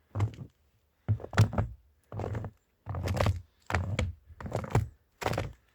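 Footsteps crunching through about an inch and a half of fresh snow at a steady walking pace, about seven steps.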